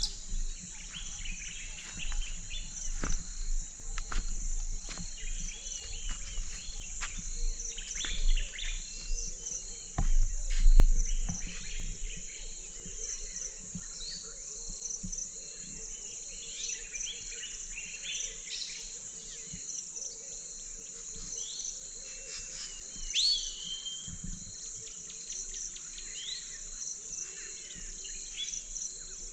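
Early-morning insect chorus, a steady high-pitched pulsing trill, with birds chirping and calling over it. A brief low rumble, the loudest sound, comes about ten seconds in.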